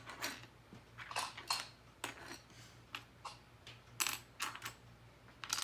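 Loose LEGO pieces clattering as hands rummage through them: irregular clicks and rattles of hard plastic on plastic, loudest about four seconds in.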